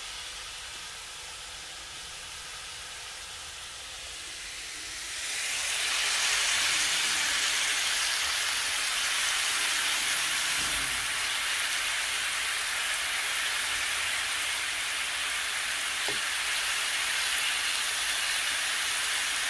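Thin-sliced pork neck sizzling in a hot frying pan: a steady hiss, softer for the first few seconds, then louder and fuller from about five seconds in.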